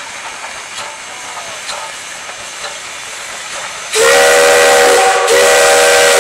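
The steam whistle of a Soviet P36-series 4-8-4 steam locomotive sounds about four seconds in. It is a loud chord of several notes that slides up slightly as it opens, breaks briefly after about a second, and sounds again for about another second.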